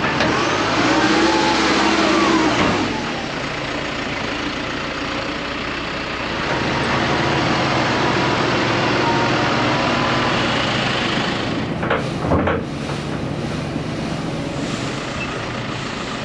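Telehandler's diesel engine revving and running under hydraulic load as it scoops and lifts a full bucket of dolomite, with the engine pitch rising and falling in the first few seconds. A brief clunk comes about twelve seconds in.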